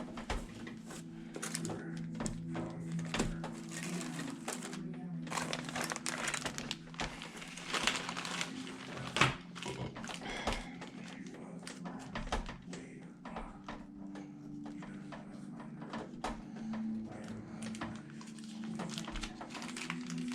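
Scattered clicks, taps and rustling from handling computer parts and screws during a PC build, with one sharper knock about nine seconds in, over a steady low background hum.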